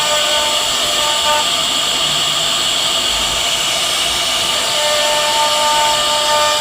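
CNC wood router running: a steady hiss with a high whine from the spindle, and a pitched tone that fades out for a few seconds in the middle and then returns.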